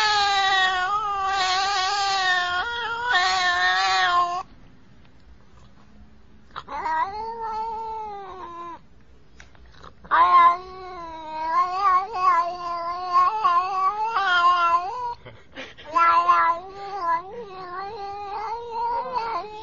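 A black-and-white cat meowing repeatedly in long, drawn-out calls that waver up and down in pitch, almost like talking. The calls break off for a couple of seconds twice before running on nearly without pause.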